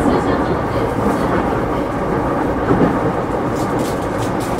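JR Yokohama Line E233-series electric commuter train running at speed, heard from inside the car: a steady rumble of wheels and running gear on the track, with a few sharp clicks near the end.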